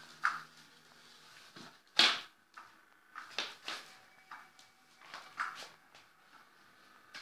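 A cat pawing and pouncing at a cat toy's fabric cover: a scattering of short knocks, taps and rustles, the loudest about two seconds in.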